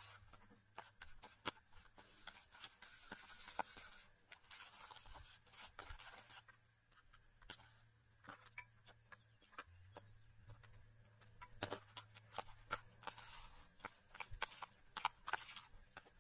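Metal spoon stirring a thick batter in a plastic bowl: irregular small clicks and scrapes of the spoon against the bowl. The clicks come faster and louder in the last few seconds, as chicken pieces are turned in the batter.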